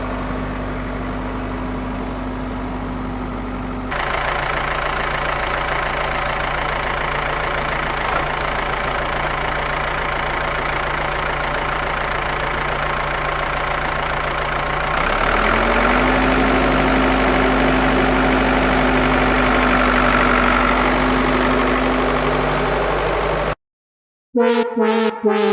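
Small engine of a DIY mini construction machine running steadily. Its sound shifts abruptly about 4 seconds in, and about 15 seconds in its pitch rises and holds. It cuts off suddenly near the end, and synth music starts.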